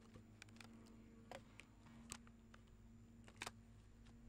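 Near silence, with a few faint clicks and taps of vinyl post wrap pieces being handled and laid in place.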